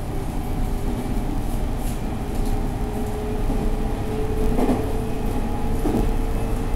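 Running noise inside a JR 313 series 2600 subseries electric motor car: a steady traction-motor whine that rises slowly in pitch over the rumble of the wheels, with the wheels thumping over rail joints twice near the end.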